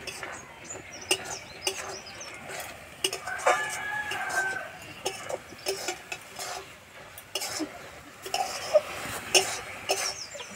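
Metal spatula repeatedly scraping and clinking against an iron wok as grated carrot filling is stirred and cooked down until dry. A rooster crows in the background about three and a half seconds in.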